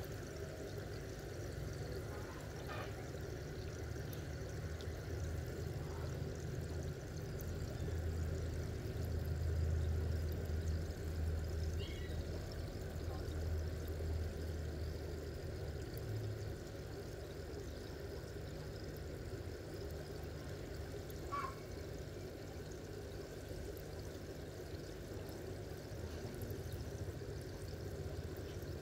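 Steady trickle of running water over a low, steady hum, with a few faint short chirps.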